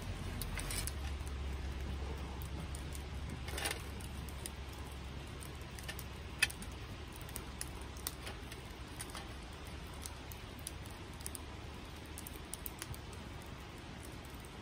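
Small wood fire crackling in a stainless steel fire box, with scattered sharp pops, the sharpest about six seconds in, over a faint steady low rumble.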